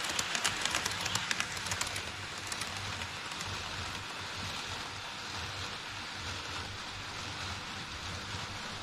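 HO-scale model Shinkansen (E5 series) rolling through a plastic truss bridge on KATO Unitrack, its wheels clicking rapidly over the rail joints for about the first two seconds. The clicking then gives way to a steady rolling hiss with a low hum as the model trains run on around the layout.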